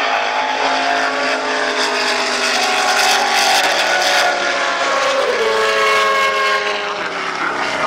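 Saleen S7-R's 7-litre Ford V8 racing engine at high revs as the car passes by and pulls away. The engine pitch dips briefly about five seconds in, then climbs again.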